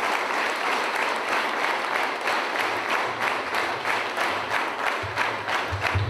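Large audience of schoolboys applauding in a hall; the dense applause thins out into separate, distinct claps over the second half.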